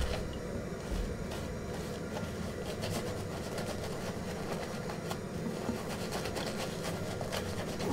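Shaving brush whisking shave-cream lather over a bearded face and neck: a steady wet swishing with many small clicks as the bristles work against the stubble.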